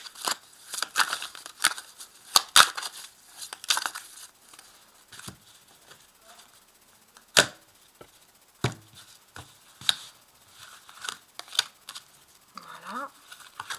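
A deck of Tarot de Marseille cards shuffled by hand: a quick run of crisp card snaps and flicks for the first few seconds, then single sharp snaps spaced a second or more apart as cards are handled and laid down.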